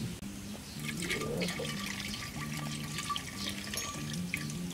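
Coconut water pouring from an opened coconut into a clay pot, a steady splashing stream, over background music.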